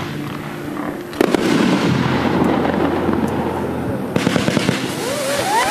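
A 25-shot consumer firework cake firing shots. There are sharp launch reports about a second in and about four seconds in, each followed by dense crackling. Near the end come rising whistles of its howl effect.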